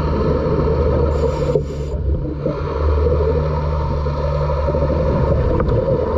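Underwater sound of a scuba diver breathing through a regulator: a steady low rumble, with a short high hiss of an inhale about a second in.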